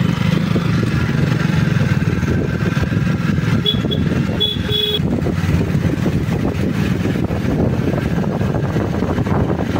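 Jawa 42 Bobber's single-cylinder engine running steadily, its exhaust giving a fast, even low pulse. Two or three short high beeps sound about four to five seconds in.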